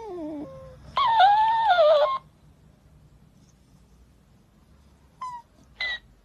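Shiba Inu whining: a falling whine at the start, a loud wavering whine about a second in, then two short high squeaks near the end.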